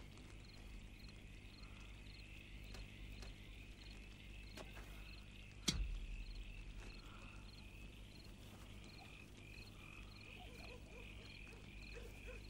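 Faint night ambience: a steady high-pitched chorus of chirping night creatures, pulsing a few times a second, over a low steady hum. A single sharp knock sounds about six seconds in.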